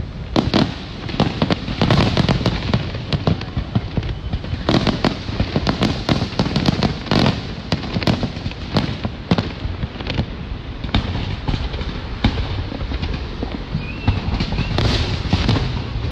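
Aerial fireworks display at its height: a dense, irregular barrage of shell bursts, booms and crackles, several bangs a second with no letup.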